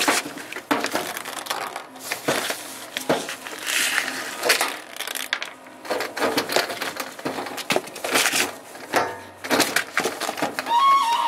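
Irregular crunching and rustling as a washer's corrugated drain hose, clogged with ice, is worked loose by hand over plastic sheeting.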